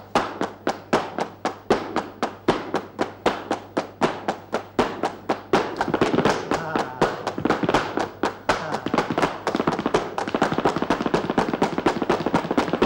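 Flamenco palmas and zapateado: sharp handclaps and shoe heels striking the stage floor in a steady rhythm, about four strikes a second. About halfway through, the strikes grow faster and denser as the footwork speeds up.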